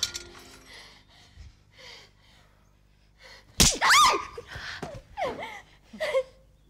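A woman's cries and gasps as she is beaten with a feather duster: soft breathy whimpers, then a sharp smack about three and a half seconds in, followed by a loud, high, wavering shriek and several short pained cries.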